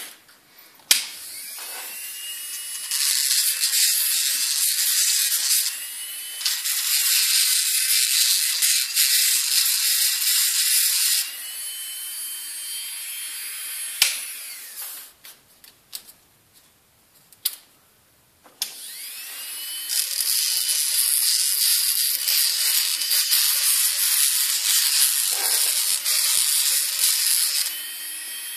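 Handheld rotary tool with a small bur grinding old glue and glass remnants out of the metal sleeve of a curing light's light guide. It runs in two long spells with a pause of a few seconds in the middle, and gives a faint rising whine each time it speeds up.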